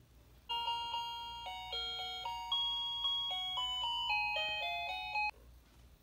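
Toy refrigerator's electronic sound chip playing a short chiming tune of bright, stepped notes, starting about half a second in and cutting off suddenly after about five seconds.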